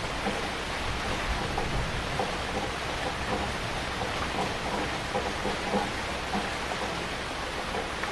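Heavy rain falling steadily, a dense hiss of countless drops with scattered closer drop hits.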